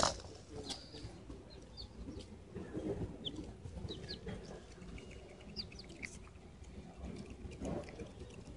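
Young chickens giving short, high peeps scattered through while they come to hand-held rice, with a sharp knock right at the start.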